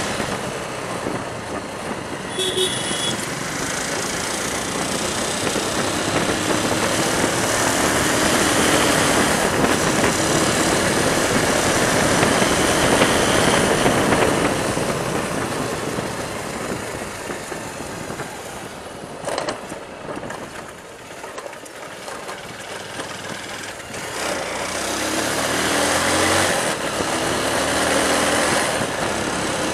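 Motorcycle riding along a road: steady wind rush on the microphone over the engine and tyre noise, with a short horn beep about two seconds in. The noise dips for a few seconds about two-thirds through, then builds again.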